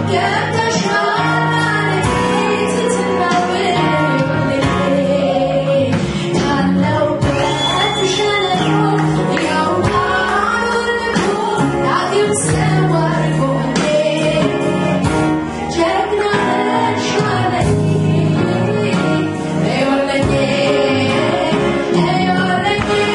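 Live Amharic gospel worship song (mezmur): a woman sings the lead into a microphone over a full live band with drums.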